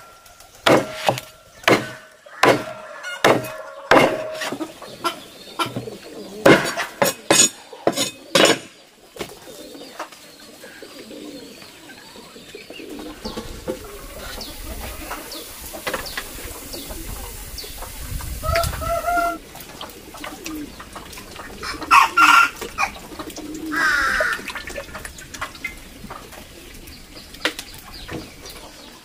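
A cleaver chopping through a roasted bird on a wooden board: a quick run of sharp chops for the first nine seconds or so. After that, chickens cluck a few times.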